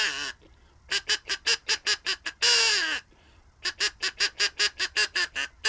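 Crow caller blown in imitation of crows: runs of rapid short caws, about six or seven a second, each run ending in one long caw that falls in pitch. This happens twice, with the second long caw starting right at the end.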